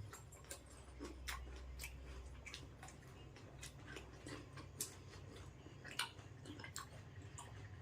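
Faint chewing of fruit: irregular small clicks and crunches, a few each second.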